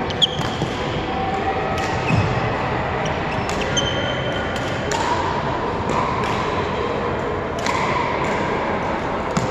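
Badminton rackets striking a shuttlecock in a rally: a string of sharp hits about one to two seconds apart, with short squeaks of shoes on the court, over steady background noise.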